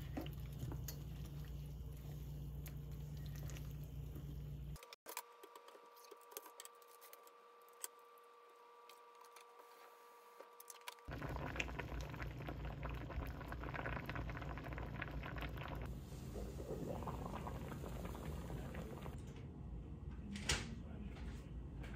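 Broth bubbling in a pot on the stove, across three cut-together shots. The middle shot is quieter, with a steady hum under it, and a few clicks and knocks come near the end.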